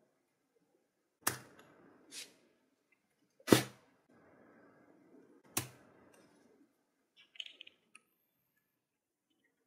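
Thumb striking the steel flint wheel of an old brass wick petrol lighter to spark it alight. There are four sharp strikes a second or two apart, the third the loudest.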